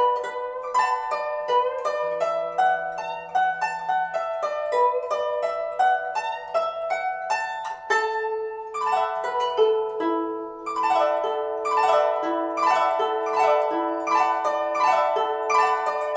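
Guzheng music: quick plucked notes in a flowing melody, each note ringing and fading, over some held lower notes.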